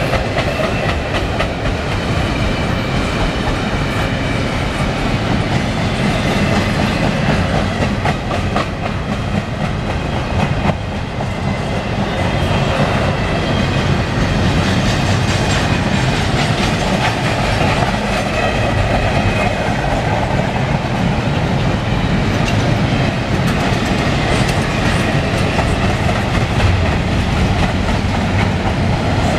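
CN double-stack container train's well cars rolling past, a steady rumble of steel wheels on rail with clickety-clack over the rail joints.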